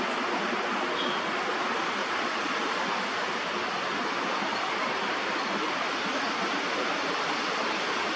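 Steady rushing noise of strong wind in the trees, even throughout with no calls or sudden sounds.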